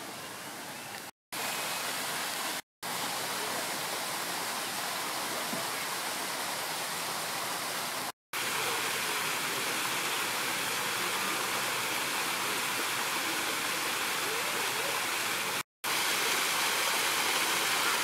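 Steady rush of falling water, like a waterfall. It drops out to silence for a split second four times.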